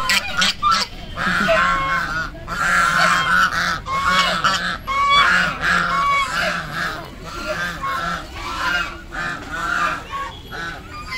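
A small flock of white domestic geese honking over and over, the calls overlapping, loudest in the first several seconds and thinning toward the end.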